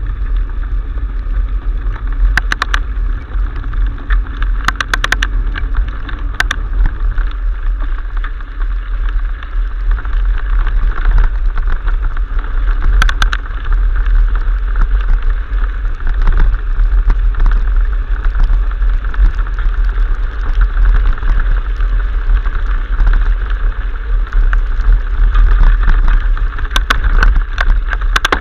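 Wind rushing over the microphone of a camera riding on a mountain bike, with tyre and bike rattle under it. Several short sharp rattles come from knocks over bumps, a few in the first seven seconds, one around the middle and a cluster near the end.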